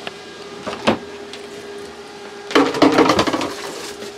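Steady hum of a boat's refrigerator fan running, holding one even tone. A click about a second in, and a loud noisy burst of about a second starting two and a half seconds in.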